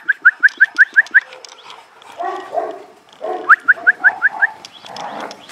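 Animal calls: two quick runs of short rising chirps, about six a second, one at the start and one about three and a half seconds in, with lower, rougher calls between them.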